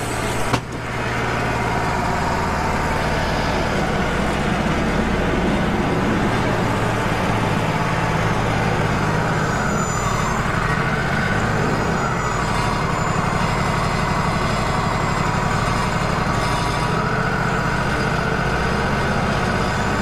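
Wood-Mizer LT35 bandsaw mill's diesel engine running steadily with the band blade sawing through a small cherry log. It gets louder about half a second in, and a higher blade whine drifts up and down with the load through the cut.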